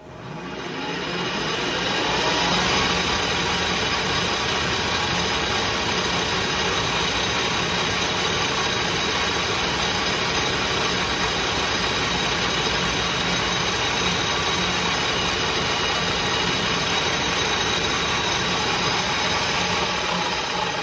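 Metal lathe spinning up to a higher speed and then running steadily with a piston turning in its chuck. This is the polishing stage, with an abrasive pad held against the piston crown.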